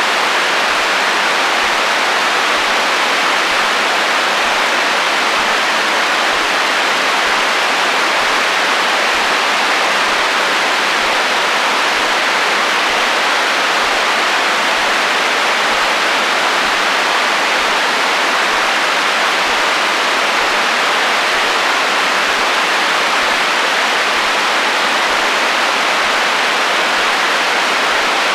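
Radio static: steady hiss of FM receiver interference in the HF band, even and unbroken, with most of its energy in the upper middle and little bass.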